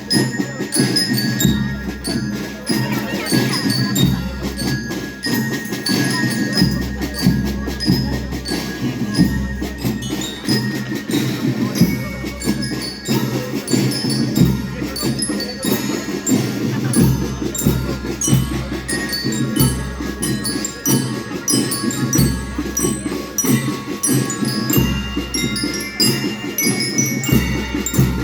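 School rhythmic band playing a march: bell lyres ring out the melody over rapid snare drum strokes and a steady bass drum beat.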